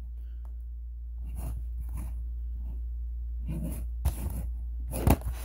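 Cardboard-and-plastic diecast car box handled and turned in the hand, with soft rustling and a few sharp taps on the table in the last second and a half. A steady low hum sits underneath.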